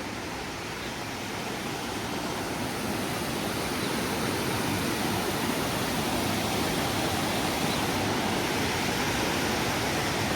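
Steady rushing of falling water from a waterfall or mill dam, growing louder over the first few seconds and then holding.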